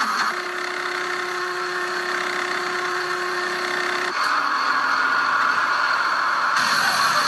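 Industrial machinery running with a steady mechanical noise and a faint steady hum; the sound changes abruptly about four seconds in and again near the end.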